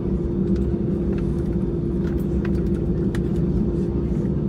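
Airbus A320 jet engines running steadily at idle, heard inside the cabin: an even low rumble with a steady hum on top, no rise in pitch yet, just before the take-off roll.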